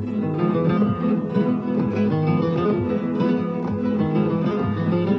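Three flamenco guitars playing a rondeña together, with a dense, continuous stream of quick plucked notes over low chords.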